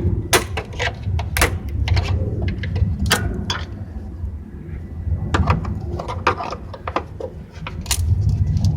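Scattered sharp clicks and knocks of hands working on the brake pad wear sensor's wiring and plastic clips, over a steady low rumble.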